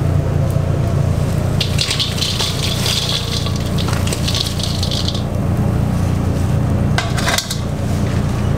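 Crisp fried bugak chips pour out of a metal mesh strainer into a stainless steel bowl: a dry crackling rattle lasting about three and a half seconds. A couple of sharp metal knocks follow near the end, all over a steady low hum.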